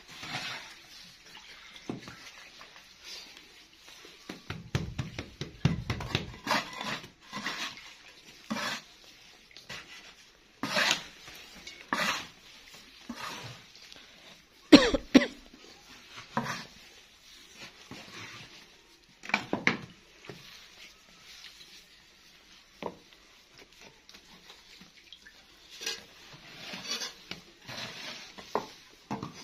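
Scattered clinks, knocks and rustling of hands and metal bowls as fresh granular jaggery (gur) is worked and pressed into balls, with one sharper knock about halfway.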